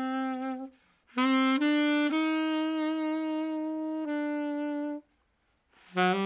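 Solo saxophone playing a slow, unaccompanied melody of long held notes. It plays two phrases, each ending in a pause of about a second, and a new note starts near the end.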